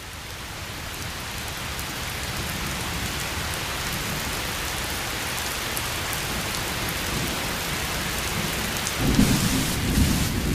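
Steady rain falling, fading in at the start, with a low rumble of thunder swelling near the end.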